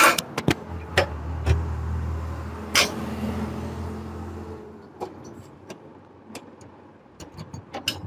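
Metal clicks and taps of a flat spanner working a nut loose on a Honda CG125 motorcycle's silencer mount, followed by small ticks as the nut is turned off. A low steady hum runs under the first half and dies away about halfway.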